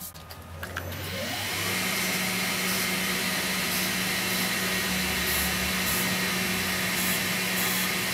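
Wood lathe motor starting up, its whine rising in pitch over the first second or so, then running at a steady speed with a steady hum and whir.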